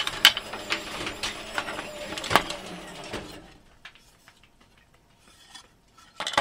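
Bar clamps being loosened and a glued-up wooden panel lifted off them: a quick run of metal clicks, rattles and wooden knocks, with one louder knock about two seconds in. The clatter stops after about three seconds, and there is a single knock near the end.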